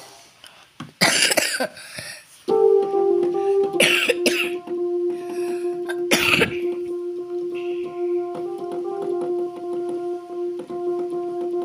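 T-9800i electronic keyboard sounding long held notes, starting about two and a half seconds in and changing pitch a few times. Three short, loud noisy bursts come in the first half.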